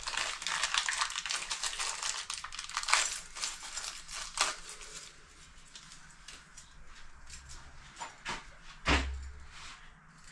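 Small metal fittings clinking and rattling while being handled and fitted to a stainless steel sink, busiest over the first few seconds, with a few sharper knocks and one dull thump near the end.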